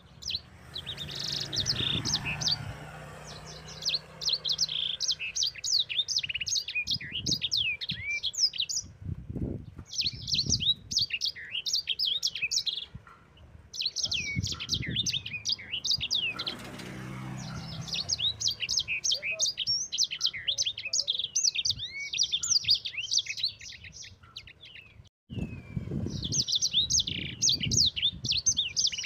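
Sanger finch singing a fast, rolling chirping song in long phrases broken by short pauses. There are a few low knocks and rustles underneath.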